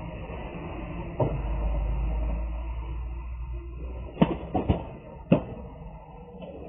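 Cardboard boxes being handled on a delivery truck's diamond-plate metal cargo floor. A knock about a second in is followed by a low rumble, then come four sharp knocks in quick succession near the middle.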